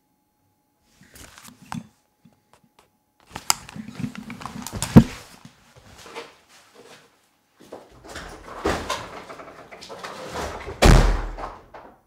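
Rustling, knocks and thumps of a person getting up and moving about off-camera, handling things. The loudest thumps come about five seconds in and near the end.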